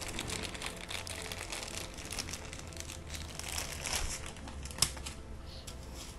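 Clear plastic wrapping crinkling as it is worked off a large telescope eyepiece, with one sharp click about three quarters of the way through.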